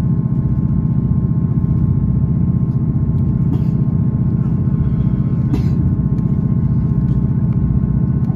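Class 158 diesel multiple unit under way, heard from inside the carriage: a steady low drone from the underfloor diesel engine and running gear, with a couple of faint clicks.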